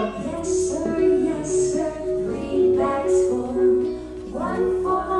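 Children singing a song, with music playing underneath in a regular beat.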